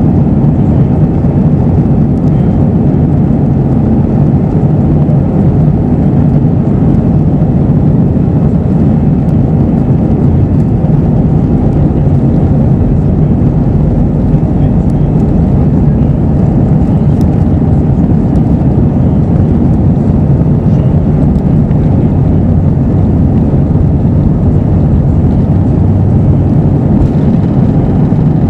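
Steady low roar of engine and airflow noise inside the cabin of an Airbus A321 with CFM56 engines, with no change in pitch or level.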